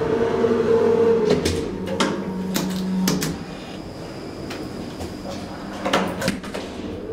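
The elevator's hinged steel landing door is pushed open and then swung shut, giving two groups of latch clicks and knocks, the first about a second and a half to three seconds in and the second about six seconds in. A steady machine hum fades out just over a second in.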